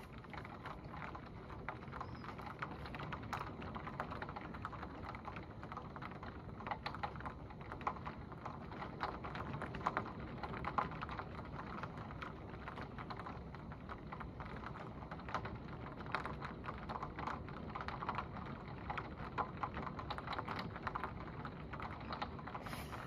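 Heavy rain hitting a window pane: a dense, irregular patter of drop hits over a steady hiss of downpour.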